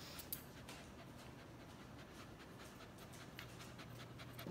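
A dog panting quickly and faintly, in a steady run of short breaths, with one light click near the start.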